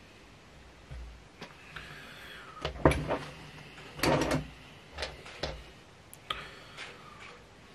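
Handling noises at a fly-tying vise: short clicks, taps and rustles, with a louder clatter about three seconds in and another about four seconds in.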